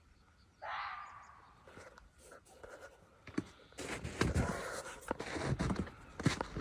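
A single harsh, noisy screech about half a second in, fading over about a second: the unidentified strange sound from the forest, which the listener later takes to be birds. From about four seconds in come crunching footsteps and rustling.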